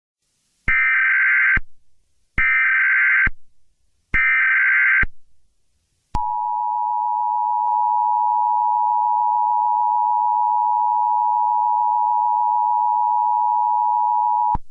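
Emergency Alert System tones: three short bursts of screeching digital SAME header data, about a second each, then the steady two-tone EAS attention signal held for about eight seconds before it cuts off.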